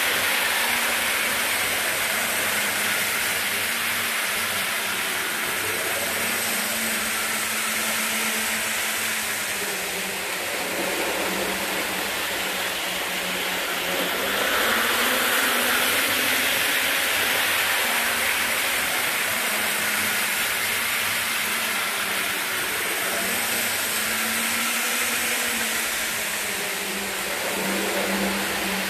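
Two Athearn HO scale model locomotives running, pulling a train of Rivarossi passenger cars: a steady whir of the motors and wheels on the track, with a low hum that wavers a little.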